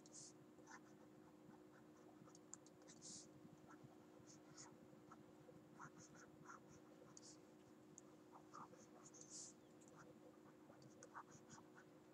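Faint, scattered taps and short scratches of a stylus handwriting on a tablet, over a steady low hum.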